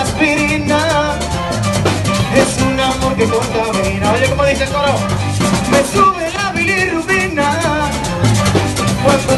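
Live merengue played by a band with a saxophone section over congas and hand percussion, a steady driving dance beat with wavering horn or vocal lines on top.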